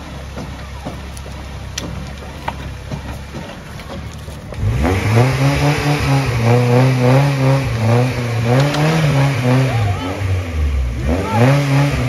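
Off-road vehicle's engine, low in the background at first, then from about five seconds in revving hard, its pitch rising and falling again and again under heavy throttle, briefly dropping near eleven seconds before climbing once more.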